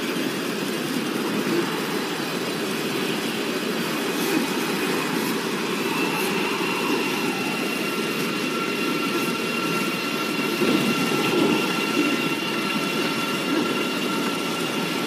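Dense, steady rushing storm-like noise from the film's sound design, with a faint high held tone coming in about six seconds in.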